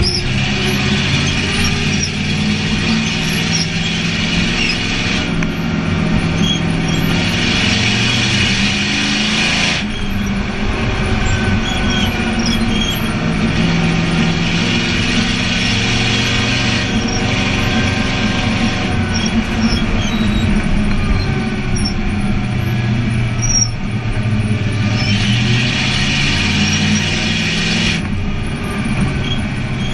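Race car engine heard from inside the cockpit, running hard around a short oval track, its pitch rising and falling as the car goes through the laps. The tyres squeal through the corners twice, about a third of the way in and again near the end.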